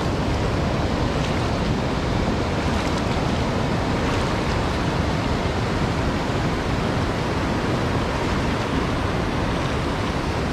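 Steady rushing of river water spilling over a weir and rocky cascades.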